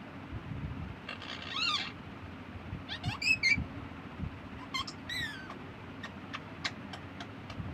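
Caged green parakeets calling: three short harsh squawks that rise and fall in pitch, about one, three and five seconds in, followed near the end by a quick run of short sharp ticks.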